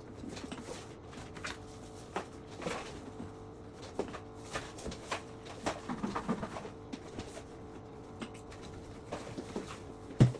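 Scattered light clicks and knocks of things being handled and wiped during kitchen cleaning, over a faint steady hum, with one sharp knock near the end.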